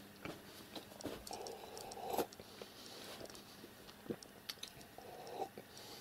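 Domestic pigeons moving about in a wooden box: scattered light clicks, taps and scrapes, with one sharper knock about two seconds in.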